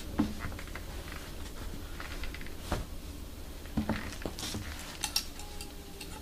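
Leather hides being handled: soft rustling with scattered light clicks and knocks as a hide is lifted and a thickness gauge is clamped onto its edge.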